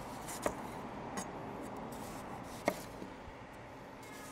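Chef's knife slicing an onion thin on a wooden cutting board, with a few sharp, irregular knocks of the blade hitting the board. The two loudest come about half a second and two and a half seconds in.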